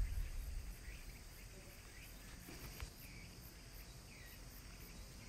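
Faint outdoor insect drone, steady and high, with a few short chirps about once a second.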